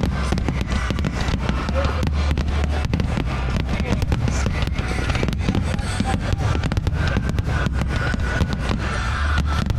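Fireworks going off in quick succession, a dense run of sharp pops and bangs with no gap.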